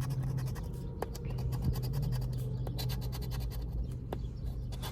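Scratching the coating off a scratch-off lottery ticket: a run of quick, irregular scratching strokes, over a steady low hum.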